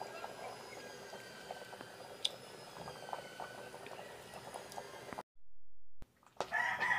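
Pot of rice porridge for champorado bubbling over a wood fire, with scattered small pops and crackles. About five seconds in the sound cuts off abruptly, and a rooster starts crowing near the end.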